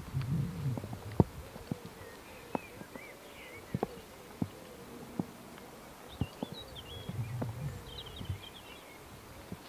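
Outdoor rural ambience: scattered sharp knocks and clicks, the loudest about a second in, with faint bird chirps and two brief low rumbles.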